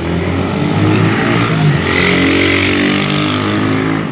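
A motorcycle engine passing close by, with the engine note shifting in pitch and the sound swelling to its loudest about two seconds in.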